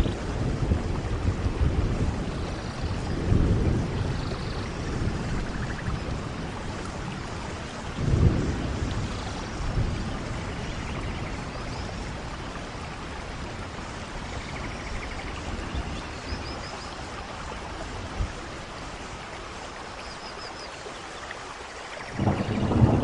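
Steady rainfall, with low rumbles rising out of it at the start, about three and eight seconds in, and again near the end.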